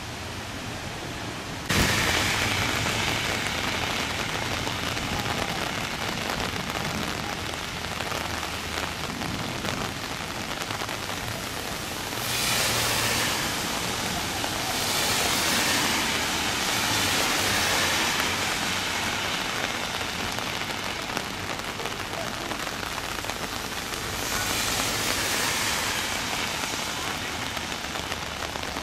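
Heavy downpour: a steady hiss of rain, jumping louder suddenly about two seconds in and swelling louder three times.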